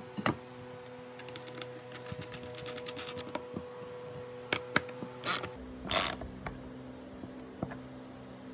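Threaded inserts being driven in with a hand tool: fast ratchet-like clicking, a few sharp clicks and two louder scraping bursts about two-thirds of the way in, over a steady background hum.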